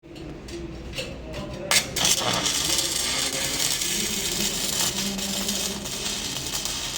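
Electric arc welding: a few sharp clicks as the arc is struck, then a steady crackling hiss of the running arc from about two seconds in.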